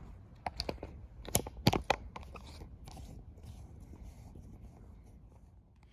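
Several light clicks and knocks in the first two and a half seconds, the two sharpest about a second and a half in, then only a faint low background.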